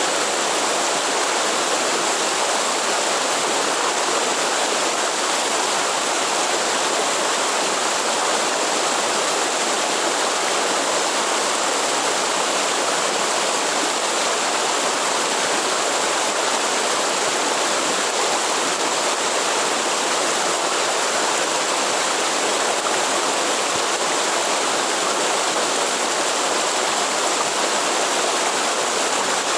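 Waterfall with water rushing steadily and without a break.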